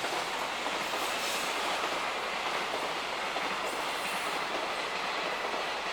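A train running past on the tracks: steady rail and wheel noise.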